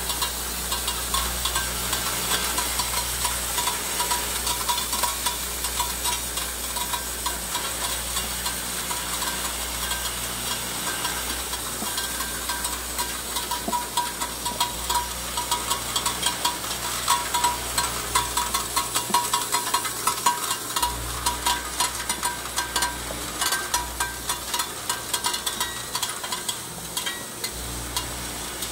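Screw and foam washer assembly machine running: a dense, rapid clicking and rattling of small parts over a steady hum, the clicks growing sharper and more spaced in the second half.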